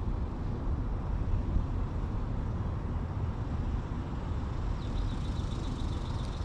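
Steady, fluctuating low rumble of outdoor background noise with no distinct events.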